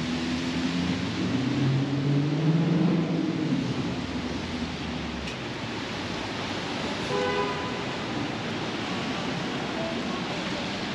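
Steady rain hiss over city street traffic. A vehicle passes in the first few seconds, its engine rising in pitch, and a short pitched sound like a horn toot comes about seven seconds in.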